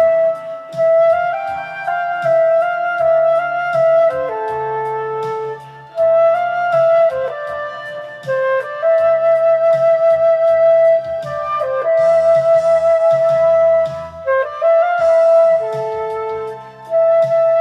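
Flute playing a song melody in long held and sliding notes over a karaoke MIDI backing track with bass and a steady drum beat. A cymbal-like wash comes in twice near the end.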